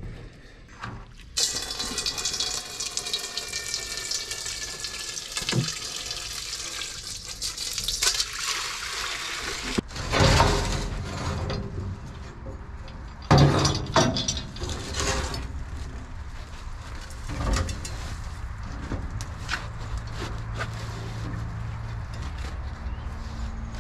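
Gasoline pouring in a steady stream out of the dump truck's leaking fuel tank into a metal pan for about eight seconds. Then come several loud clanks and knocks as the rusty steel tank is worked loose and lowered.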